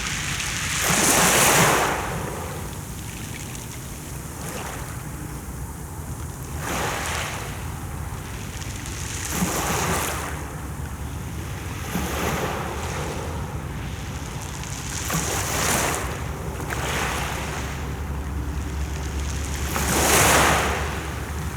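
Mediterranean Sea waves washing onto the shore, the surf swelling and falling away every few seconds, loudest about a second in and near the end. Wind rumbles steadily on the microphone underneath.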